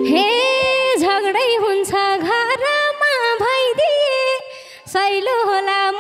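A woman singing a Nepali dohori verse solo into a microphone, unaccompanied, on ornamented, wavering held notes. She breaks off for a moment about four and a half seconds in, then sings on.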